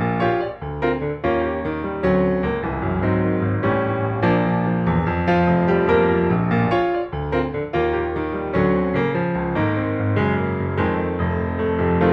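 Background music: a piano piece with a steady run of notes.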